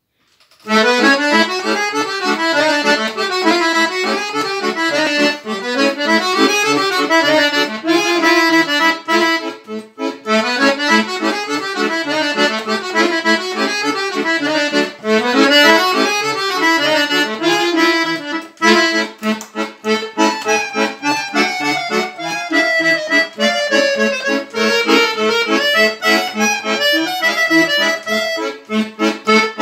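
Chromatic button accordion playing a fast kolo, a Serbian folk dance tune: quick running melody over a steady pulsing bass. The playing starts just under a second in and briefly drops away about a third of the way through.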